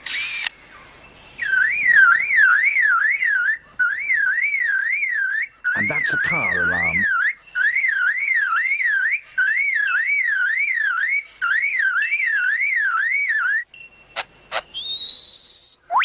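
Superb lyrebird mimicking a loud warbling whistle that sweeps up and down about four times a second, in phrases of about two seconds broken by short gaps, like an electronic car alarm. A brief burst opens it, and a few clicks and a rising whistle close it.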